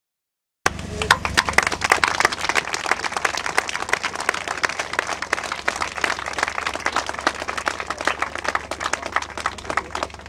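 A crowd applauding, a dense patter of many hands clapping over a low steady rumble. It starts abruptly about half a second in, after dead silence, and thins out near the end.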